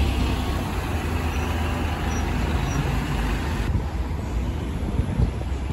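A double-decker bus driving past close by with a low rumble over street traffic; about two-thirds of the way through the sound changes abruptly to quieter, more distant traffic.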